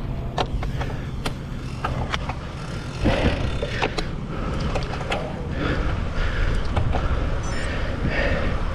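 Wind rushing over the microphone of a camera on a moving road bike, with tyre noise on concrete and scattered sharp clicks and knocks from the bike rolling over the pavement.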